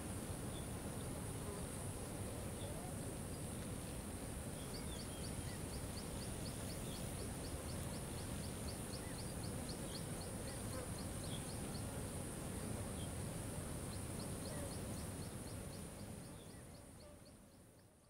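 Outdoor riverside ambience: a steady low rushing background with a steady high hiss, a few faint scattered chirps, and two runs of rapid high ticks at about five a second. It fades out over the last couple of seconds.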